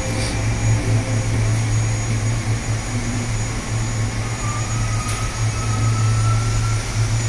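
A steady low droning hum with a faint slowly rising whistle from about halfway through, played back through a hall's loudspeakers as part of a projected video's soundtrack.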